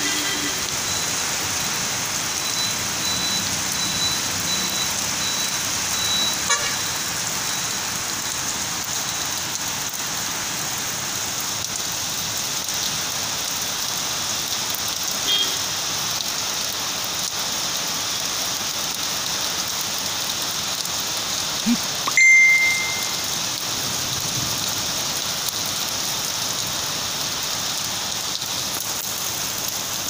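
Heavy rain falling steadily on wet paving and a flooded road, with traffic passing on the wet road. About two-thirds of the way through, a short, loud high beep.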